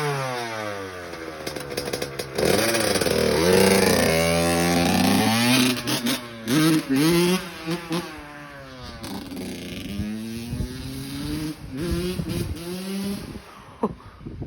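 Honda CR85 single-cylinder two-stroke motocross bike ridden hard, the engine revving up and down through the gears in repeated rising and falling sweeps, with short throttle blips in the middle; it fades away near the end.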